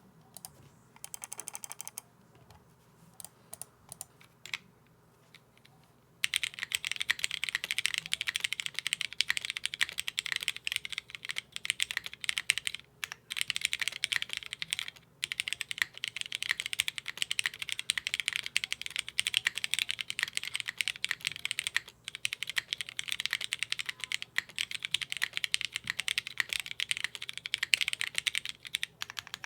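Mechanical keyboard with lubed Cherry MX Black Hyperglide linear switches, mounted plateless and fitted with DCS keycaps, being typed on. A few scattered key presses come first, then fast continuous typing from about six seconds in.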